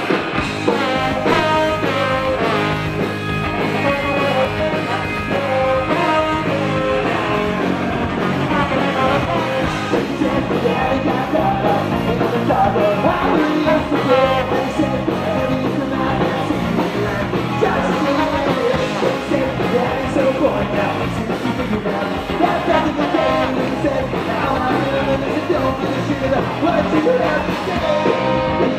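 Live punk rock band playing: electric guitar, electric bass and drums with a lead singer, loud and dense throughout.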